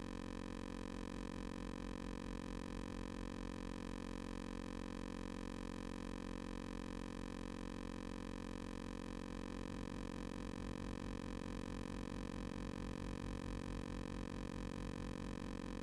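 Steady electrical hum and buzz with a faint low throbbing, unchanging throughout.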